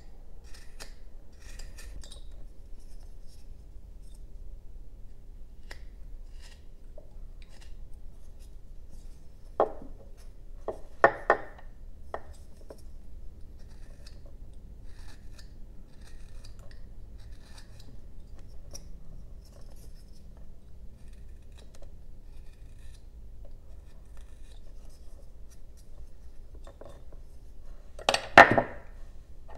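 Carving knife slicing thin shavings from a basswood block: a run of small dry snicks and scrapes, with a few louder clicks about ten to twelve seconds in and a sharp knock near the end.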